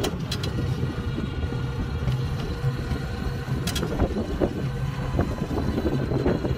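Small electric car driving along a paved road: a steady low rumble of tyre and wind noise with a faint motor hum, and a few brief clicks or rattles, one at the start and one a few seconds in.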